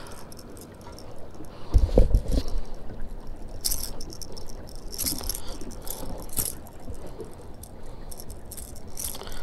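A hard topwater lure and its metal treble hooks rattling and clinking several times as a hooked fish shakes on the line, with a low thump about two seconds in.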